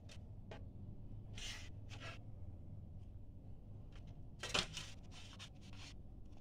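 Faint handling noise from a satellite set-top box being turned over in the hands: several short rubbing scuffs, with a sharper knock about four and a half seconds in.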